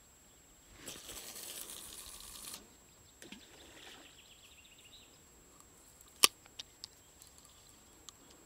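A cast with a spinning rod: a rushing swish lasting under two seconds as the line runs off the spinning reel's spool, then the reel handle turned with quick even ticking. A little later a sharp click, the loudest sound, followed by two lighter clicks from the reel.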